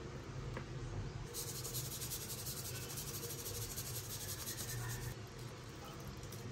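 Salt being sprinkled over raw milkfish in a stainless steel pot: a fine, high hiss that starts about a second in and stops about five seconds in.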